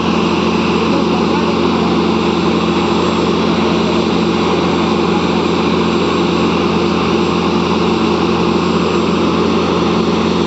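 Steady, unchanging drone of a small motor running continuously, with a constant low hum.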